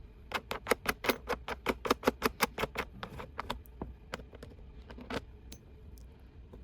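A quick, even run of about fifteen sharp clicks, about six a second, then a few scattered clicks.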